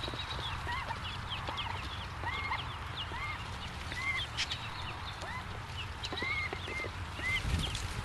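Mallard ducklings peeping: a steady run of short high chirps, some quickly falling and some arched, over a steady low hum.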